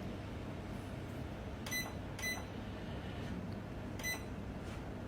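Hair dryer giving three short electronic beeps as its buttons are pressed, two close together and one about two seconds later, over a steady low hum.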